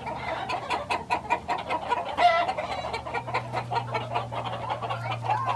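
A crowd of chickens clucking loudly in a coop, with rapid overlapping short calls and one louder drawn-out squawk about two seconds in.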